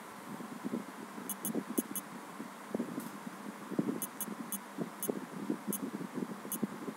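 Smartphone on-screen keyboard key-press clicks: about a dozen short, sharp ticks at an uneven typing pace, over a steady low background noise.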